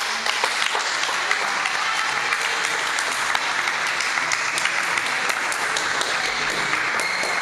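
Applause: many hands clapping steadily, with sharp single claps standing out.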